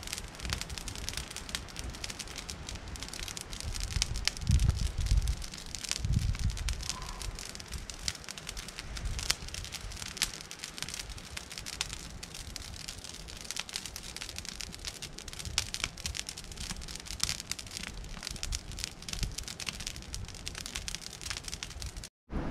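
Wood fire crackling and popping steadily, with a couple of low rumbles about four and six seconds in.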